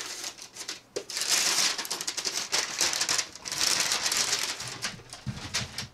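Brown kraft packing paper crinkling and rustling as it is unwrapped from a boxed vinyl figure, in two long bursts, one about a second in and one past the middle.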